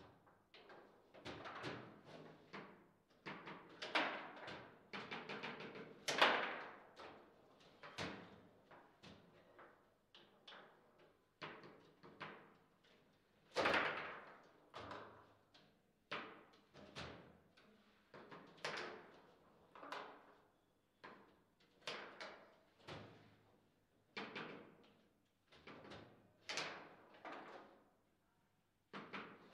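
Table football in play: irregular knocks and clacks of the ball striking the plastic player figures and the table walls, and of the rods being jerked and spun, with a few much louder shots.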